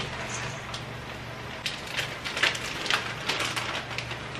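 Plastic bag of shredded cheese being handled, crinkling in a string of short sharp crackles through the second half, over a steady low hum.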